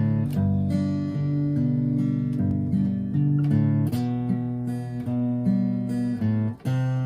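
Slow, calm acoustic guitar music, notes plucked and left to ring as the chords change. There is a brief gap in the sound about six and a half seconds in.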